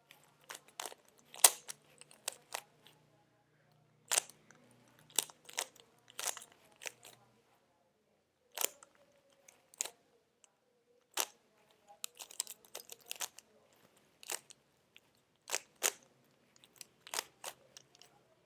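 Rubik's cube layers being turned by hand to scramble it: irregular sharp plastic clicks and clacks, some single, some in quick runs, with pauses of a second or so between.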